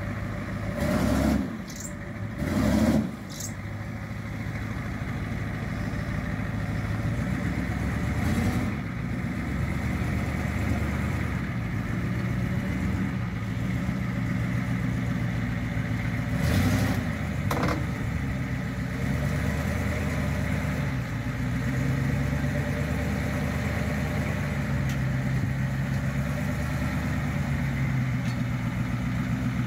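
Ford F-350 truck's engine idling and pulling at low revs as the truck is driven slowly onto a car-hauler trailer, its pitch stepping up and down a few times. A few short knocks about a second in, near three seconds, and again after the halfway point.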